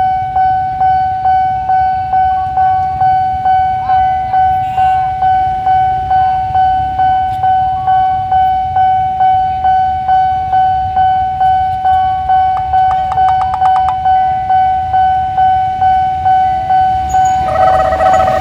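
Railway level-crossing warning bell ringing, one steady pitch struck about twice a second with each strike fading before the next. Near the end the approaching train becomes audible under it.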